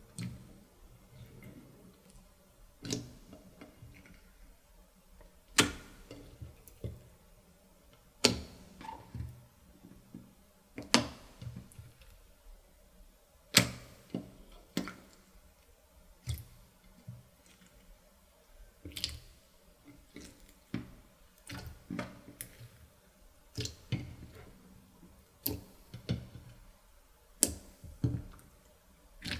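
Slime being pressed, stretched and folded by hand, giving sharp clicking pops every second or two with softer squelches between them.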